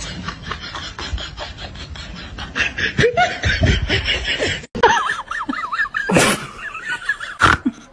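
People laughing hard in quick, rapid pulses that grow louder and higher. About four and a half seconds in the sound cuts abruptly to more short laughs and two brief hissing bursts.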